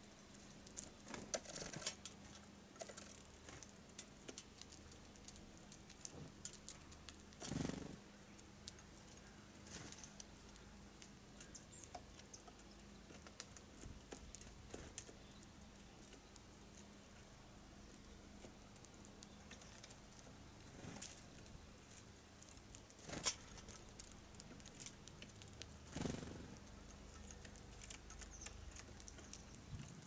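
Faint scattered taps and scrapes of small songbirds pecking and hopping on wooden and wire-mesh bird feeders, with a few louder knocks, the loudest about 23 seconds in.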